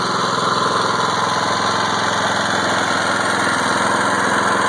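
Harbor Freight Predator 173 cc single-cylinder engine running steadily while belt-driving an alternator, with next to no electrical load on it yet.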